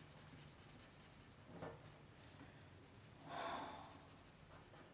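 Near silence, with faint strokes of a drawing tool on paper; the loudest is one soft, hissy stroke about three seconds in.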